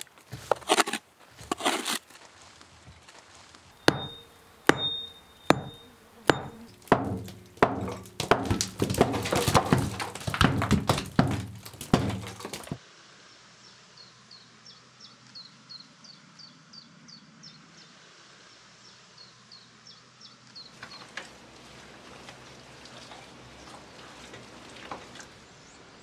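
Short-handled spade striking and chopping into packed soil: a series of sharp thunks and scrapes, roughly one a second and then quicker. It stops abruptly about twelve seconds in, leaving quiet ambience with a run of faint high chirps.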